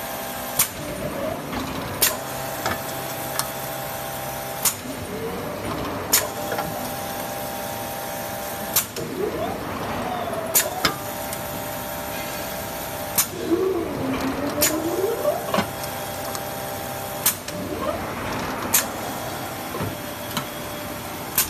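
Polyurethane tire-casting machine at work: a steady mechanical whine and hum, cut by sharp clicks every couple of seconds, with now and then a squeal that rises and falls.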